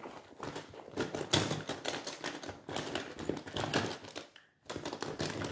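A compass fitted with a colouring pencil drawing a circle on paper: irregular pencil scratching mixed with small clicks and rustles of the drawing tools being handled, with a short pause about four and a half seconds in.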